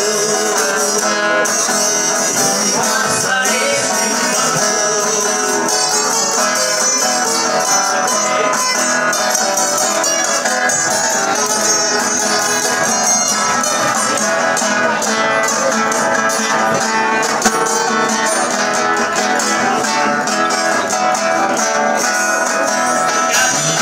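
Viola caipira and acoustic guitars playing a sertanejo song together, steady strummed and picked accompaniment.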